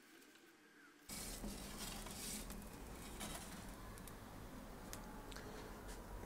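A steady hiss starts abruptly about a second in, with light scrapes and clicks of a pizza peel against the oven floor as the baked Neapolitan pizza is slid out of the small pizza oven.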